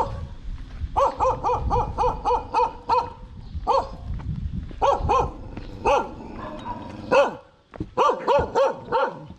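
A dog barking: a quick run of short barks, about four a second, starting about a second in, then single barks and short bursts of barks for the rest of the time.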